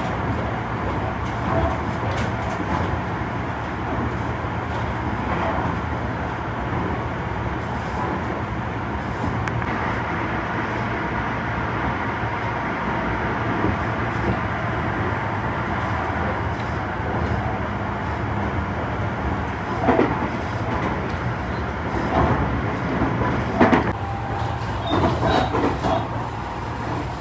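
Tobu 50090 series electric train running steadily, heard from aboard: a constant rumble of wheels on rail with a steady hum. A few sharp knocks come about twenty seconds in and again near the end.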